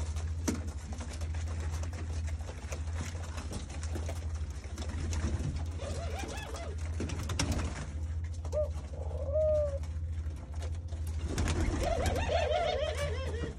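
A loft of ringneck doves cooing, with short rolling coos around the middle and a run of them near the end. Brief flutters and scratches of wings and feet come in between, over a low steady hum.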